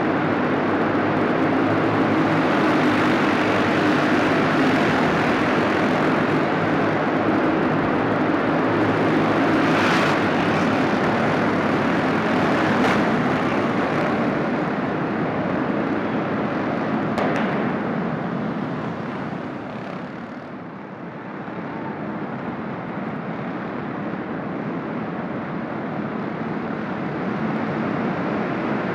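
A pack of racing go-kart engines running hard around the track, swelling and fading as the karts pass. The sound thins about two-thirds of the way through and builds again near the end as the pack comes back around.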